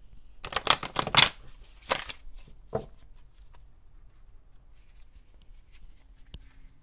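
Oracle card deck being shuffled by hand: a quick run of card slaps in the first second or so, two more about two and three seconds in, then only faint handling of the cards.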